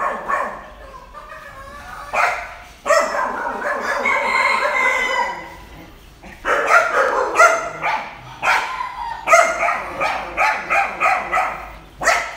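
A rooster crows once, a long call starting about three seconds in, amid repeated dog barking that comes in a quick run through the second half.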